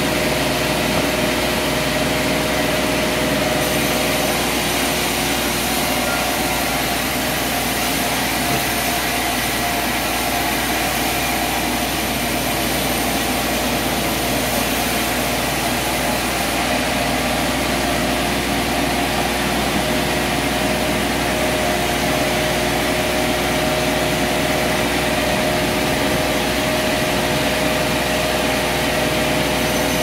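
Large vertical band sawmill running steadily while a log on its carriage is sawn into lumber: a constant machine noise with a steady hum and a high hiss, the hiss strongest from a few seconds in until about halfway.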